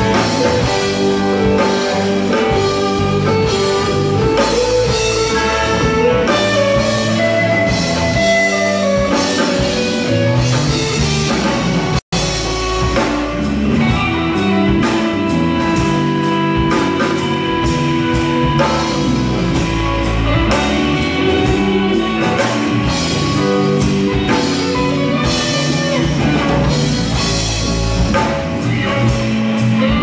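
Live band playing amplified rock music: electric guitars over a drum kit, loud and continuous. The sound cuts out for an instant about twelve seconds in.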